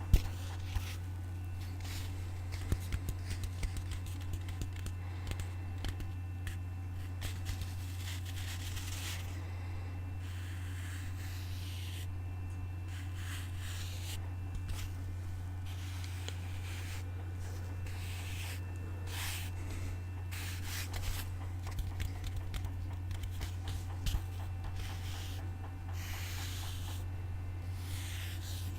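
Close-miked scratching and rubbing on a surface, broken by scattered light taps and clicks, over a steady low hum.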